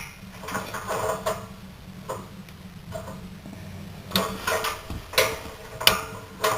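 Igniter clicking again and again while lighting a Suburban propane furnace pilot, about ten sharp clicks at irregular intervals. The pilot is not catching, which the owner takes for an airlock in the gas line.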